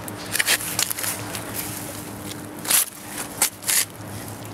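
A few short scrapes and knocks as a magnet-fishing magnet is pulled off a rusty iron lump lying on cobblestones. The loudest come near the middle and towards the end.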